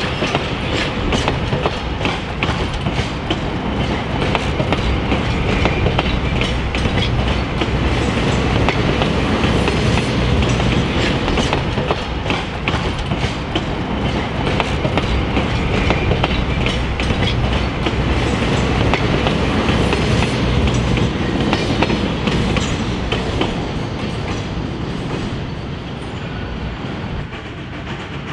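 A steam-hauled passenger train rolling along the track: a steady rumble of the cars with wheels clicking over the rail joints, getting a little quieter near the end.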